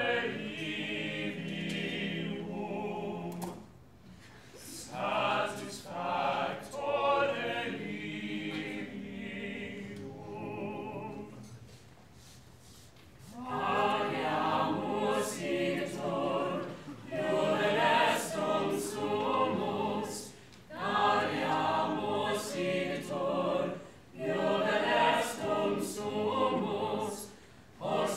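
A large mixed choir of men's and women's voices singing together in long phrases broken by short pauses, quieter for a moment around the middle.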